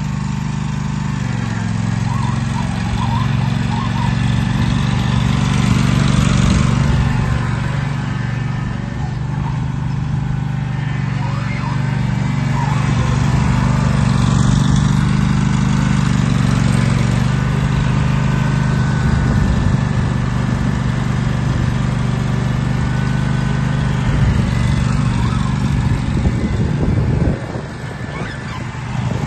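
Countax A2050HE ride-on mower's Honda petrol engine running steadily while the mower is driven. Near the end the engine note drops briefly, then picks up again.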